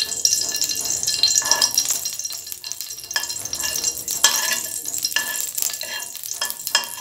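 Ghee sizzling as it melts in hot soybean oil in a non-stick wok, with a flat spatula stirring and scraping across the pan in short strokes.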